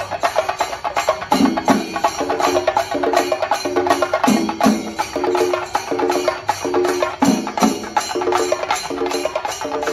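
Percussion-led music: fast, even drum strokes with a sharp, wood-block-like attack, over a short pitched figure that repeats in a steady cycle.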